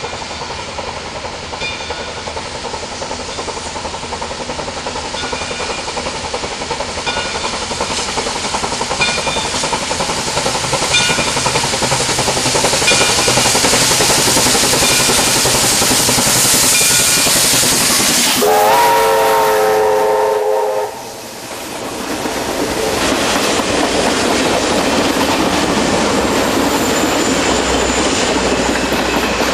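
Steam locomotive NYS&W 142, an SY-class 2-8-2, approaching and growing louder, its working noise and hiss building up. About two-thirds through, its steam whistle gives one chord-like blast of about two seconds. The sound then drops out briefly, and the excursion's passenger cars roll past on the rails.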